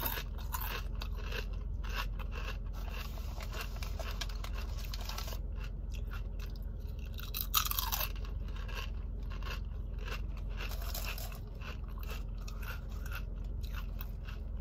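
Close-up crunching and chewing of a Dirty brand mesquite barbecue potato chip, a steady run of irregular crunches with louder ones at the start and about seven and a half seconds in.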